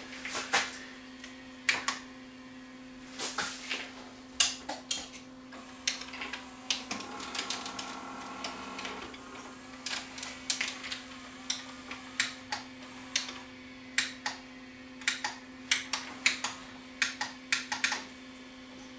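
Open Panasonic PV4250 VCR mechanism clicking and clunking irregularly as it tries to load and play a tape, with a motor whirring for about two seconds some seven seconds in, over a steady hum. The capstan motor is stalling and is given a push by hand to get it turning.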